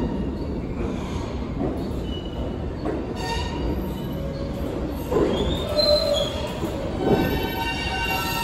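R160 New York City Subway train pulling into the station, its cars running past with a steady rumble of wheels on rail. Brief high squeals come from the wheels about five to six seconds in, and a set of steady whining tones rises up near the end as the train slows.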